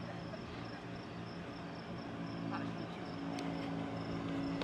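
Crickets chirping in an even, pulsing trill, over the low steady hum of an idling car engine.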